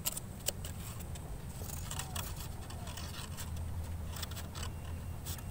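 Small rubber-powered model plane being handled and pried apart by hand: scattered light scrapes, scratches and sharp clicks, over a low steady rumble.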